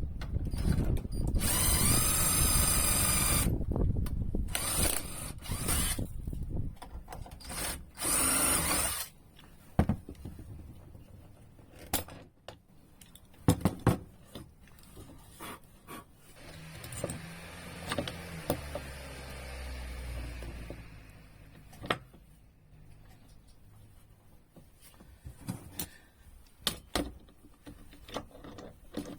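A power drill runs in three bursts in the first nine seconds, its motor whine rising and falling in pitch. Scattered sharp clicks and knocks follow.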